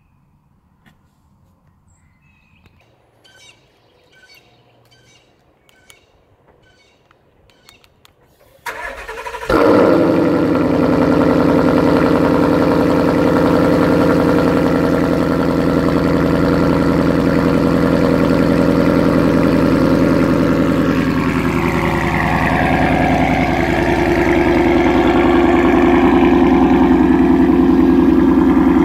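2017 Ford Mustang GT's 5.0-litre V8 breathing through a Corsa Extreme cat-back exhaust, started about nine seconds in: a short crank, a loud flare as it catches, then a steady deep idle.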